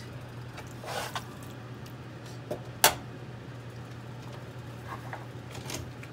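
A metal spoon working cooked ground-beef sloppy joe mix in a nonstick frying pan. It makes a few soft scrapes and knocks, and one sharp clink a little before halfway, over a steady low hum.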